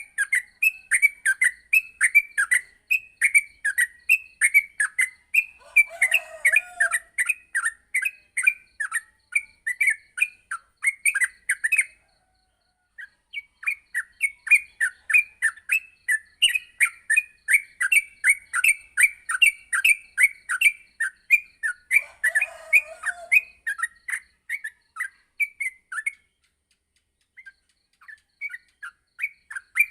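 Yellow-vented bulbul (trucuk) singing a fast, continuous string of short chirping notes, several a second, breaking off twice for a second or two. A rougher, lower call cuts in briefly twice. This is the rapid, unbroken 'ngropel' song used as a master recording to train captive bulbuls.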